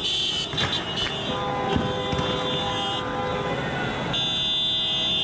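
Car horns sounding in long, steady, overlapping blasts. A high-pitched horn cuts off about three seconds in and starts again near the end, while a lower horn holds from about a second and a half in.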